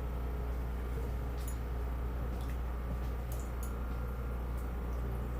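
Portable generator running steadily with a constant low hum, with a few faint ticks over it.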